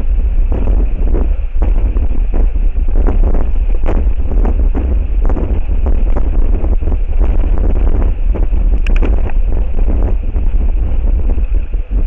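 Strong gusty wind buffeting the camera's outdoor microphone: a loud, constant low rumble that swells and drops in quick, irregular gusts.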